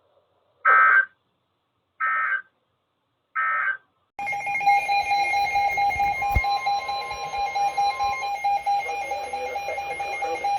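Three short bursts of Emergency Alert System SAME digital data, the end-of-message code that closes a broadcast flood warning. About four seconds in, a steady alert tone starts over a hissy, fluttering background: the attention signal of the next alert.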